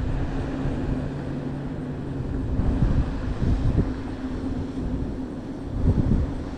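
Low, steady engine drone with a deeper hum that drops out about two and a half seconds in.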